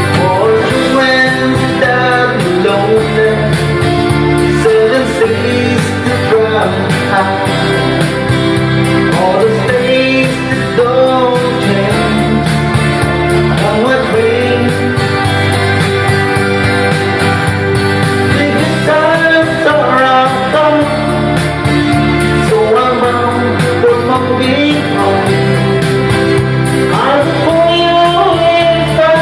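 Country-folk music: guitar accompaniment with a singing voice carrying the melody.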